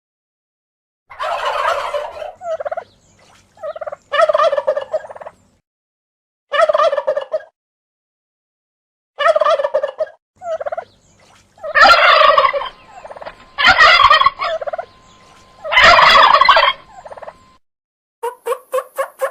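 Turkey gobbling: about eight loud, rattling gobbles, each half a second to a second and a half long, with silent gaps between them. Near the end a quicker run of short, evenly spaced pulses starts.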